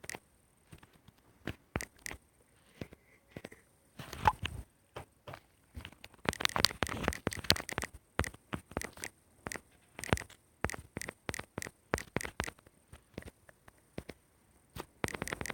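Irregular clicks, taps and rubbing of fingers on a smartphone, with a thicker cluster about halfway through.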